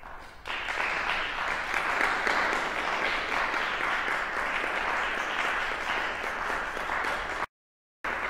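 Audience applauding, beginning about half a second in and holding steady. It cuts out completely for about half a second near the end.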